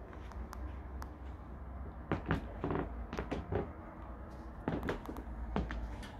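Scattered soft knocks and clicks, bunched about two to three and a half seconds in and again near five seconds, over a steady low rumble: footsteps on a wooden laminate floor and handling noise from a hand-held camera.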